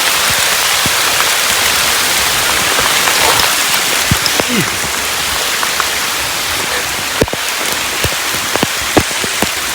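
Heavy rain pouring down, so loud: a dense, steady hiss with scattered louder drops striking close by.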